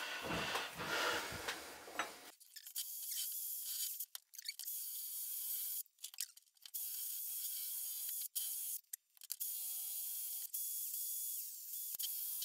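Brief clatter of handling, then a cordless drill running with a steady whine that stops briefly several times as it strips paint from metal reel-mower parts.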